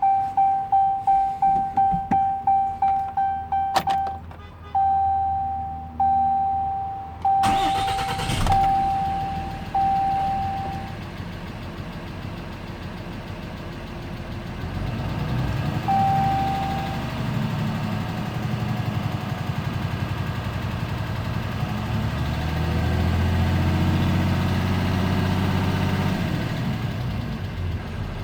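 Dash warning chime of a 2013 Ram 2500 beeping about three times a second, then in longer tones, while the 6.7-litre Cummins inline-six turbo diesel cranks and fires about eight seconds in. The engine then idles and is revved twice, with a ticking that the owner traced to exhaust valve lash way out of spec (about .032 in).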